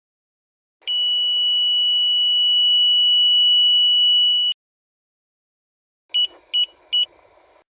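Electronic beeper of a VIP RS3000 car alarm system sounding one long, steady high-pitched beep of about three and a half seconds, then, after a pause, three short quick beeps at the same pitch.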